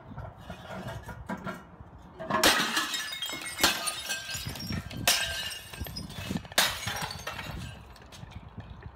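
Sledgehammer smashing a porcelain toilet: four heavy blows starting about two seconds in, roughly one every second and a half, each followed by the crack and clatter of shattering ceramic pieces.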